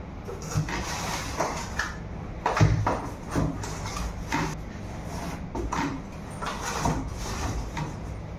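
Cardboard packaging being handled: the cardboard insert tray of a box scraping and rustling as it is lifted out, with irregular knocks of parts against the box and desk, the loudest a little over two and a half seconds in.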